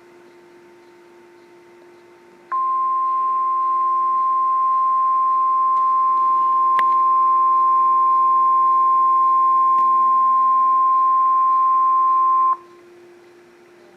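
NOAA Weather Radio warning alarm tone: a single steady 1050 Hz tone that starts about two and a half seconds in, holds for ten seconds and cuts off suddenly. It signals that a warning message follows. A faint steady hum from the receiver sits under it and is left alone before and after.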